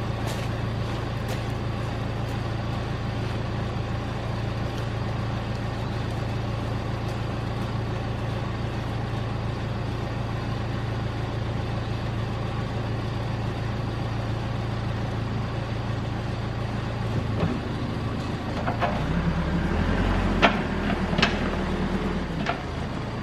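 Caterpillar backhoe's diesel engine running steadily. About two-thirds of the way in, its note shifts and grows louder as the machine works, with a few sharp knocks near the end.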